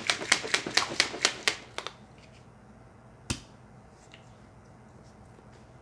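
Plastic shaker bottle being shaken to mix a powdered energy drink into water: rhythmic clacking about four times a second that stops about two seconds in. About three seconds in comes a single sharp click from the bottle's lid.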